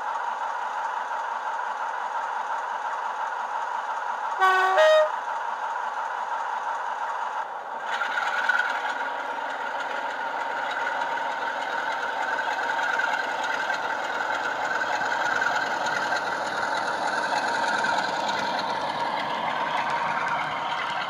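Sound decoder in a Bachmann Class 47 model, playing the SWD Class 47 sound file through two small megabass speakers: the diesel engine idling, then a short two-tone horn blast, low note then high, about four and a half seconds in. Near eight seconds the engine note steps up and grows louder as the loco pulls away with its train.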